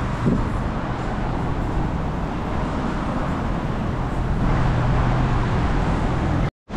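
City street traffic: a steady rush of passing cars with a low engine hum that swells about four and a half seconds in. The sound drops out abruptly for a moment near the end.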